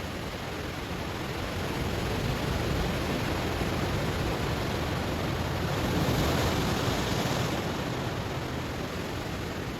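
Ocean waves washing onto stones, a wave building for a few seconds, breaking loudest around six to seven seconds in, then receding.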